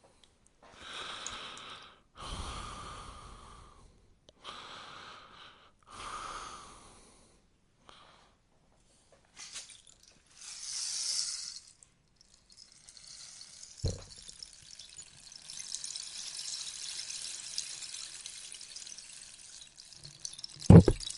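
Rainstick being tipped: its beads trickle down the tube in short runs of a second or two, then in a longer continuous rain-like cascade from about two-thirds in. There is a thud midway, and a sharper knock near the end is the loudest sound.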